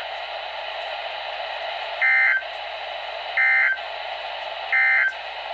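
NOAA Weather Radio broadcast: three identical short bursts of warbling SAME digital data tones, about a second and a half apart, over steady radio hiss. These are the end-of-message signal that closes an EAS alert.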